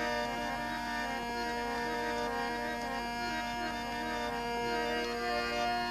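Harmonium playing an instrumental interlude between sung verses of a devotional bhajan: a melody of short notes stepping up and down over a steadily held low note.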